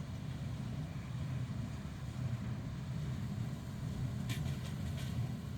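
John Deere 5085E diesel tractor and 328 square baler running steadily, heard as a low, even engine drone, with two faint clicks about four and five seconds in.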